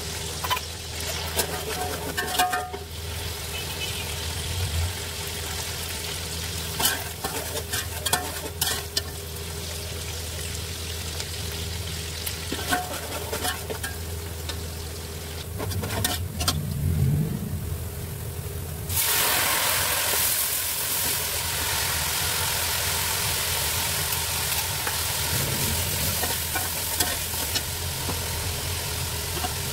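Sliced onions frying in oil in an aluminium pot, sizzling steadily while a metal slotted spoon stirs them, with scrapes and clicks of the spoon against the pot. About two-thirds of the way through, the sizzle turns suddenly louder and hissier. A steady low hum runs underneath.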